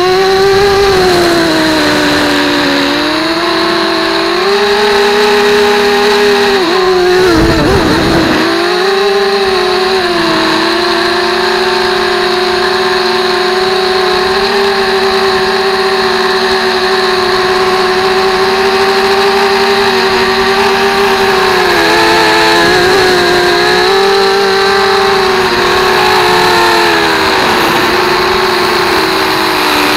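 Electric motor and propeller of a Minion FPV model plane, heard close-up from its onboard camera: a steady buzzing whine whose pitch rises and falls gently with throttle. About seven seconds in the pitch drops and a burst of low wind rumble hits the microphone before the motor comes back up.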